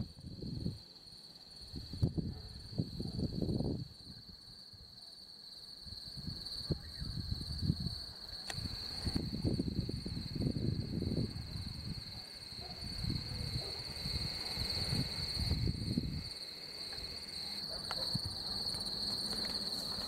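Crickets trilling steadily in a high, unbroken band. Low rumbles swell and fade several times beneath them.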